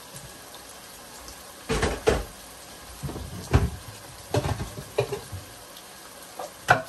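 Kitchen clatter from handling kitchenware: several separate knocks and rattles, the loudest about two seconds in, over a steady low background.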